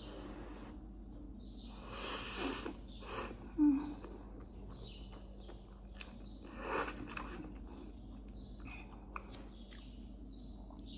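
A person eating instant noodles with a fork: slurping mouthfuls of noodles in and chewing, with louder slurps about two seconds and about seven seconds in. A short, louder thump a little before four seconds in.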